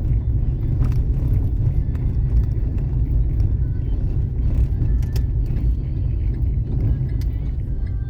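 Car driving, heard from inside the cabin: a steady low rumble of engine and road noise, with a few faint clicks and rattles.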